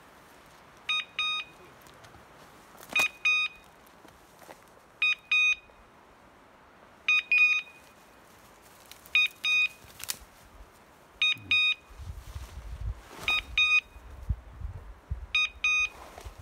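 A pointing dog's electronic beeper collar giving pairs of short high-pitched beeps about every two seconds. This fast double-beep rhythm is the kind a beeper collar gives when the dog stands still on point. From about twelve seconds in, low crunching and rustling of someone walking through brush comes in underneath.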